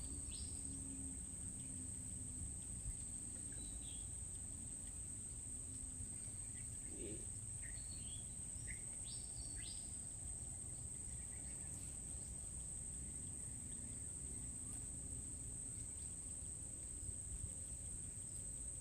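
Insects shrilling steadily at a high pitch, with a few short bird chirps now and then over a low outdoor hum.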